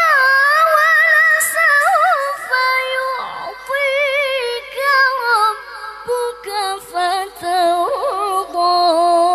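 A woman reciting the Qur'an in melodic tilawah style into a microphone, holding long notes decorated with quick wavering trills. The line steps down, and she settles on a lower held note near the end.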